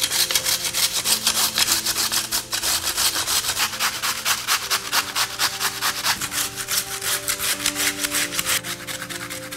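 Raw peeled potato grated on a flat stainless-steel hand grater: rapid, even rasping strokes, several a second, easing off a little near the end.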